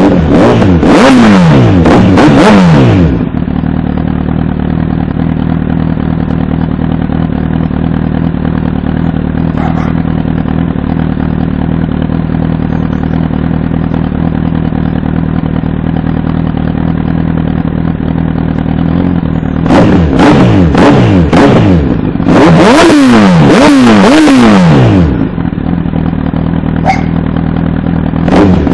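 Honda CBR1000RR (SC57) inline-four engine through a Scorpion aftermarket exhaust, revved in several sharp throttle blips that fall straight back. It then idles steadily for about sixteen seconds before another run of quick blips and a return to idle.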